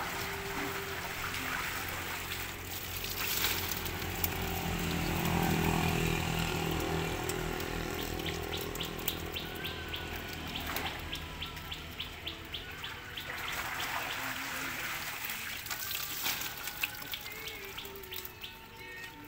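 Water trickling and splashing around plastic crates of live, freshly harvested catfish being handled, with scattered sharp knocks and clicks.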